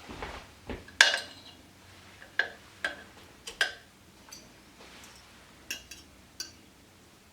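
Kitchen utensils clinking and knocking against dishes: a string of sharp, separate clinks, the loudest about a second in.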